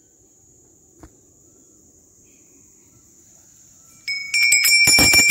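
Faint steady insect buzzing, then about four seconds in, metal temple bells suddenly start ringing, struck rapidly and repeatedly with several overlapping ringing tones.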